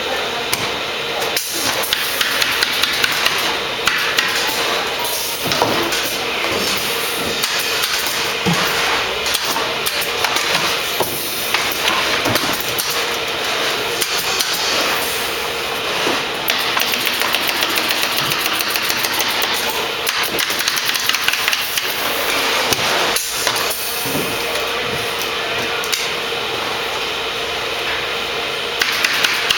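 Pneumatic staple gun firing staples into wooden stretcher bars in quick runs of sharp shots, over a steady background hiss with a faint hum.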